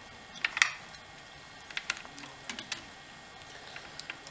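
Light clicks and ticks from hands working a short piece of fuel line onto a chainsaw's fuel fittings. The ticks are scattered, and the loudest pair comes about half a second in.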